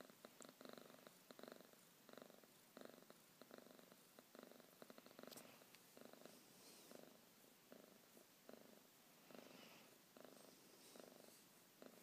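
Domestic cat purring steadily, the purr swelling and fading in even waves about every two-thirds of a second as it breathes in and out.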